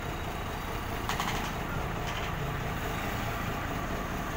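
Heavy diesel engine running steadily with a low rumble, with a brief rattle about a second in.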